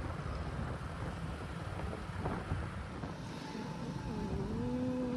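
Low rumble of a vehicle on the move, with wind on the microphone. Near the end a steady pitched tone sounds for about a second.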